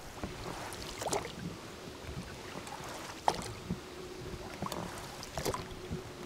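Oars working a small rowing boat: irregular splashes of the blades in the water and knocks of the oars in their oarlocks, about one every second or two, the sharpest knock about three seconds in.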